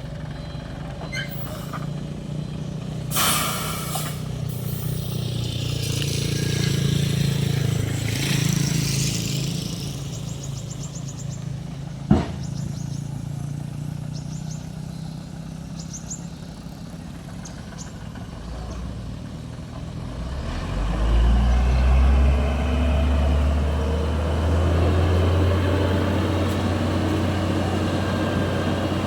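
Hino concrete mixer truck's diesel engine running, with a short air-brake hiss about three seconds in and a sharp click near the middle. About twenty seconds in, the engine grows louder and deeper, with a rising whine over it.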